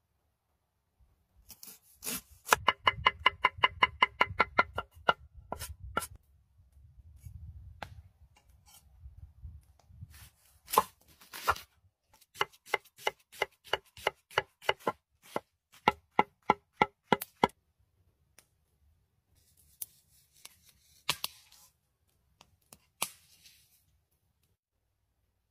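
A large cleaver-style kitchen knife chopping garlic and onion on a wooden cutting board. There are three quick runs of rapid chops, several a second, each with a short ringing tone from the blade striking the board, and a few single heavier cuts in between.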